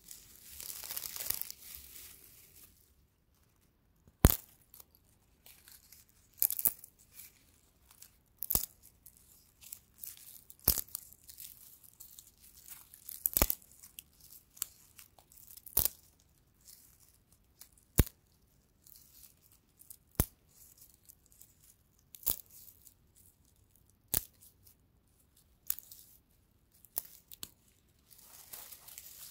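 Dry straw handled by fingers: a crinkly rustle at first, then a dozen crisp, sharp snaps about every two seconds as single stalks are pulled and broken, with the rustling back near the end.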